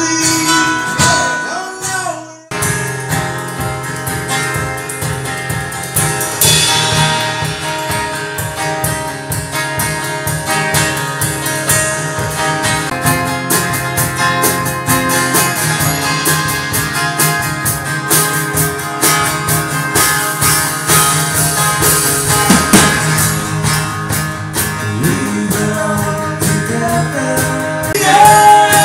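Live acoustic band: acoustic guitars strummed over a drum kit with cymbals, and a singing voice, holding a long note near the end. The music drops out abruptly for a moment about two seconds in, then carries on.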